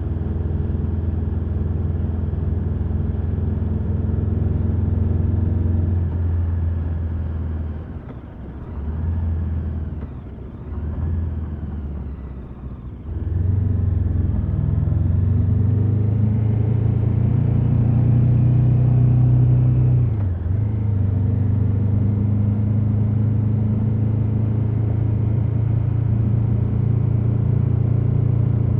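KTM 1290 Super Adventure S's V-twin engine running through its stock exhaust. It runs steadily, drops away in several short dips with shifting pitch in the middle, then comes back strong and steady.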